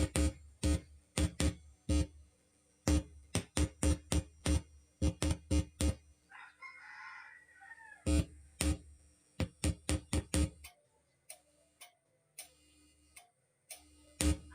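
Music with a sharp, heavy drum beat played through the just-repaired amplifier for a sound check. A rooster crows once about six seconds in and again near the end.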